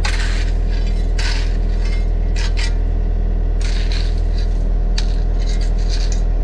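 Mini excavator's diesel engine running steadily under load, with repeated short bursts of scraping and clatter as it works. The scraping comes in several separate bursts, thickest in the second half.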